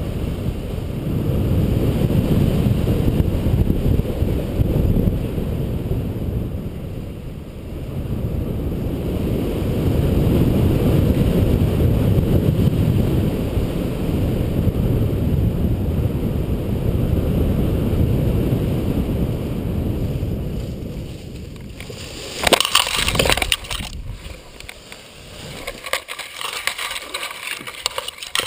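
Wind rushing over the helmet-camera microphone during an engine-out paramotor glide, with no motor running. About three-quarters of the way through, the landing: a sudden crash into dry brush, then stems and twigs crackling and snapping.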